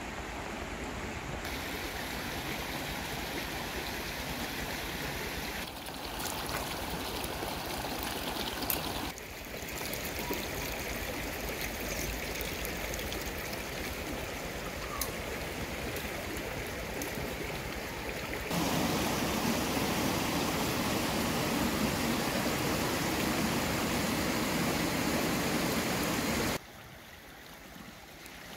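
Steady rush of a stream flowing over rocks. Its level jumps suddenly a few times: louder and fuller from about two-thirds in, then dropping sharply near the end. A few faint clicks sound over it.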